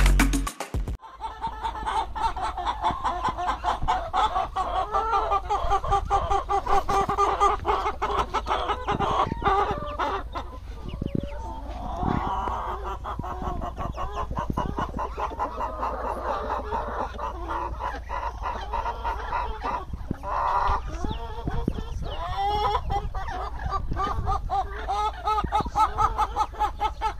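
A flock of farmyard chickens clucking and calling, many short calls overlapping without a break.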